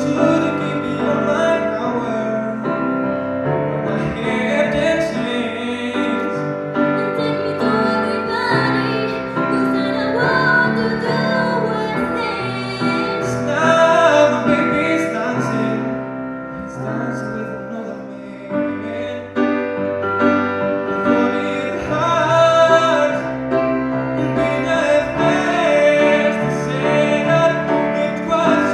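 Women singing live with grand piano accompaniment; the song eases to a softer passage a little past halfway, then builds again.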